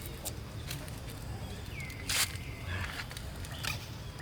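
Outdoor background with a short, high animal call about two seconds in that swoops up and then holds, followed at once by a brief harsh squeak, and a few small clicks around it.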